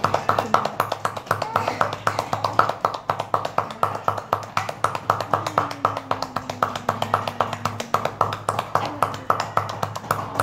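Rapid, even hand-patting on a child, about seven pats a second: 'tepuk-tepuk' chest percussion to loosen phlegm during a cough and cold. A steady low hum runs underneath, and about halfway through the child holds a long vocal tone that shakes with the pats.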